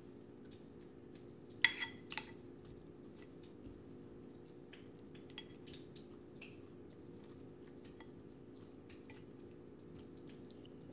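A metal fork working a cooked eggplant on a plate, ticking and clinking lightly against the plate, with two sharper clinks about two seconds in. A steady low hum runs underneath.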